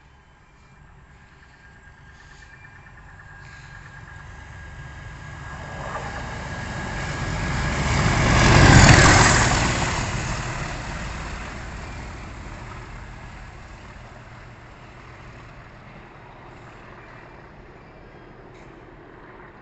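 Direct Rail Services Class 37 diesel locomotive passing through the station: its engine and wheels grow steadily louder as it approaches, are loudest about nine seconds in as it goes by, then fade slowly as it runs away.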